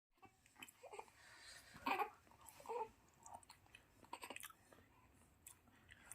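Newborn baby making short, quiet sounds one after another: little catches of breath and small voiced squeaks. The loudest come about two seconds in and just before three seconds in.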